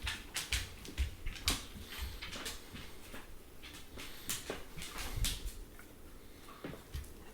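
Dog sneezing over and over, a rapid string of short sharp sneezes: a sneezing fit the owner puts down to a bee sting that has swollen its face.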